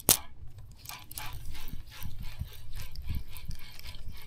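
A sharp click, then a run of quick, irregular mechanical clicks and rattles: a spinning reel being cranked to retrieve a Castmaster spoon.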